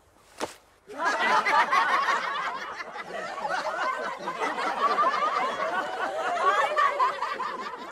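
A single sharp crack, then a crowd of many people laughing together, lots of voices overlapping, from about a second in.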